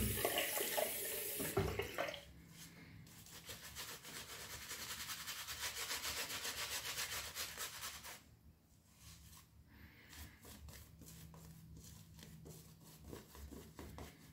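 A water tap runs for about the first two seconds. Then a shaving brush scrubs in a quick, even rhythm of about four strokes a second, working up shaving lather, growing fainter about eight seconds in.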